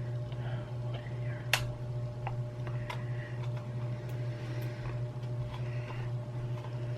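Small scattered clicks and ticks of a tiny screwdriver working at the screws and plastic shell of a computer mouse being taken apart, the sharpest about a second and a half in, over a steady low hum.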